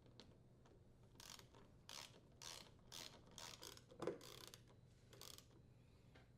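Screws securing a freezer door hinge being driven tight with a 5/16-inch driver: a run of faint, short ratcheting strokes, about two a second, with a sharper knock about four seconds in.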